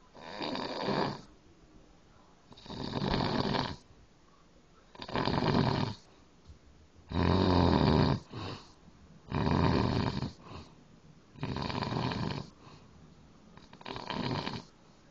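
A man snoring hard: seven loud snores, each about a second long and coming roughly every two and a quarter seconds. The fourth snore is the loudest.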